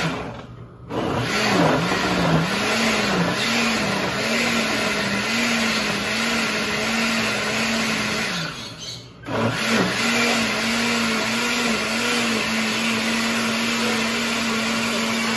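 Countertop blender running, blending sautéed vegetables with water into a sauce. The motor stops briefly about a second in and again around the middle, then starts back up, its hum wavering in pitch as the contents churn.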